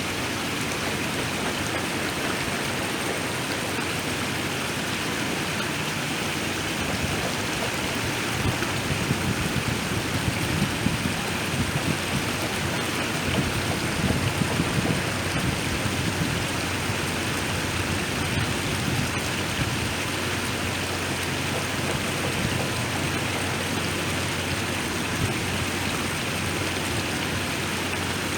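Waterfall: water falling and splashing in a continuous rush, with a deeper rumble swelling for a few seconds near the middle.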